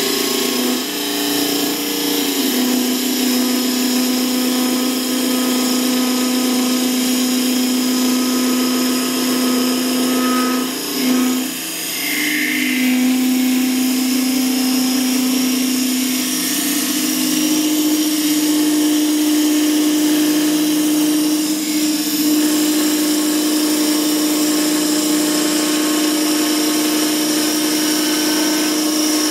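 Record Power wood lathe running while a turning tool hollows the inside of a spinning mulberry blank: a steady hum under the hiss of the cut. The cut eases off briefly a little over a third of the way through, and the hum steps up slightly in pitch later on.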